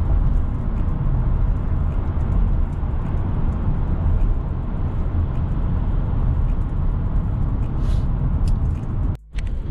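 Steady road and tyre noise inside a car cruising at highway speed, a low rumble; the sound cuts out for a moment near the end.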